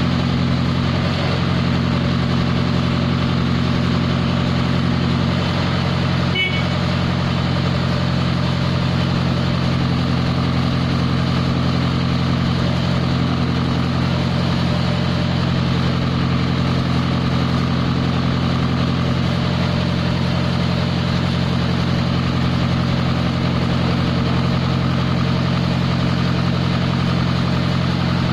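Diesel engine of a JCB mobile crane idling steadily at a constant pitch, close by. A brief click about six seconds in.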